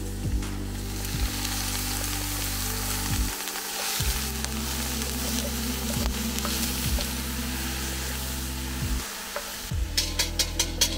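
Meat sizzling and frying in a cast-iron pot over a campfire grate while a spatula stirs it, with a quick run of sharp clicks near the end. Soft background music with sustained low tones runs underneath.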